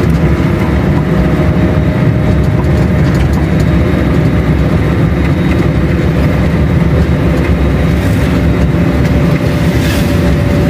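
Car driving on the road, heard from inside the cabin: a steady engine and road rumble with a faint steady tone above it, and a few light clicks near the end.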